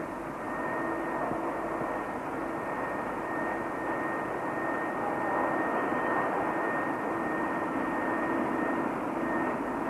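Steady mechanical whine over a hiss from an electrostatic paint-spraying rig's spinning atomiser disc as it sprays car body panels, with a constant high tone and a lower hum that comes and goes.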